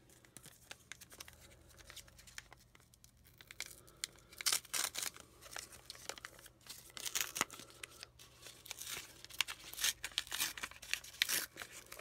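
A McDonald's 25th-anniversary Pokémon card pack's plastic wrapper being handled, then torn open and crinkled, in a run of sharp crackling rips from about four seconds in.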